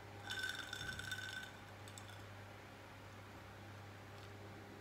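Ice cubes clink against a hand-blown rock glass of awamori as it is lifted, a short run of clicks with a brief ringing about half a second in. The rest is quiet, with a faint steady hum underneath.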